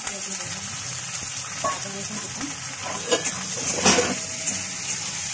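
Sliced onions and garlic frying in mustard oil in a kadai, with a steady sizzle. A metal spatula stirs and scrapes against the pan, with a cluster of sharp clinks and scrapes about three to four seconds in.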